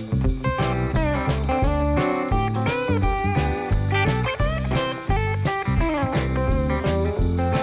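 Background music: a blues-style guitar tune with notes bending in pitch, over a bass line and a steady beat.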